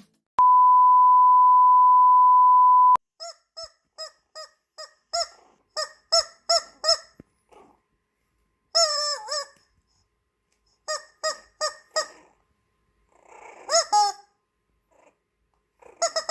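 A steady high beep tone for about two and a half seconds. Then a rubber squeaky toy squeezed over and over in short squeaks, a few of them longer and bending in pitch, with a rougher, noisier sound about three-quarters of the way through.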